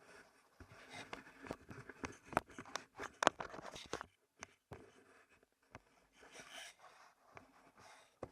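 Irregular crackling, rustling and snapping of movement through dry leaves and brush, densest in the first half with the loudest snap about three seconds in, then thinning out.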